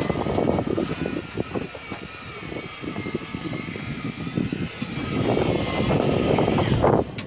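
Fishing boat's engine running with a steady, slightly wavering drone, under rushing wind and water noise that grows louder about five seconds in and cuts off abruptly near the end.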